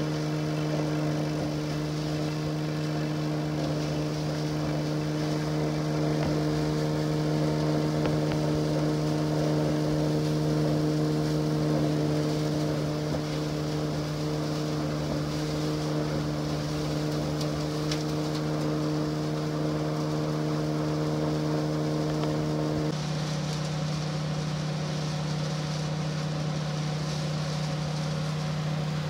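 Chopped silage being blown into a tower silo through the fill pipe and thrown around by the spinning silo distributor: a steady machine hum with a constant rushing hiss of material. A bit over three-quarters of the way through, part of the hum drops away and a lower steady hum carries on.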